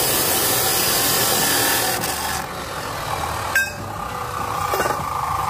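A power cutting tool runs with a loud, hissing grind, then stops about two seconds in. A sharp click follows, and a low engine-like rumble carries on underneath.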